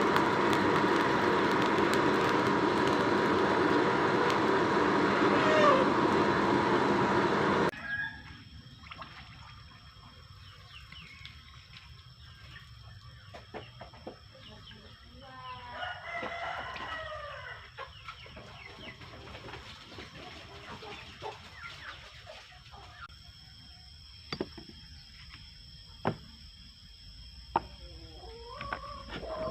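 A loud steady noise with a constant tone cuts off abruptly about eight seconds in. In the quieter background a rooster crows about halfway through and again near the end, with a few sharp taps in between.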